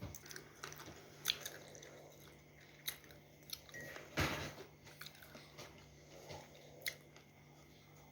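Close-up chewing and biting of a moistened, crumbly food: soft crunches and small wet clicks, with a louder crunch about four seconds in.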